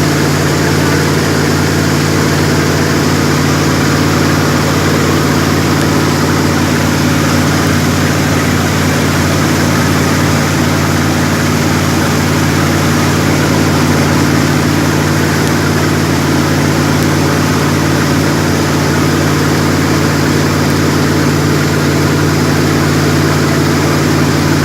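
Jet boat engine running steadily at one unchanging pitch, with a broad rushing noise over it.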